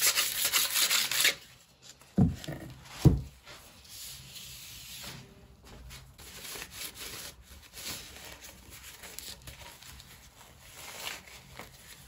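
Paper towel rubbing over a cured epoxy resin casting as a gloved hand wipes its lightly sanded surface, scratchy and loudest in the first second. Two dull knocks come about two and three seconds in.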